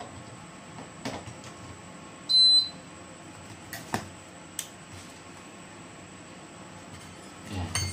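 A single short electronic beep from the air-conditioner control board's buzzer about two seconds in, as the board is switched on with the remote after its relay was replaced. A few faint clicks sound around it over a faint steady high whine.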